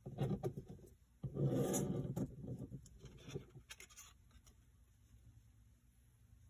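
A hand sliding a paper decal sheet across a plastic cutting mat and picking it up. There are two short rubbing noises in the first two seconds, the second louder, then a few light knocks that die away by about four seconds in.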